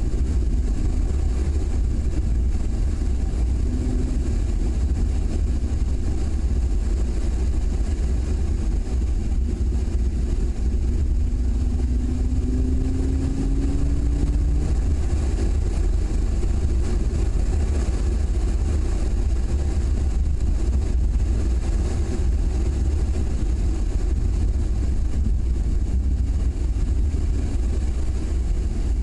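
Car driving at road speed, heard from a camera mounted outside the car: a steady heavy low rumble of wind on the microphone over engine and tyre noise. The engine note rises for a few seconds about twelve seconds in as the car speeds up.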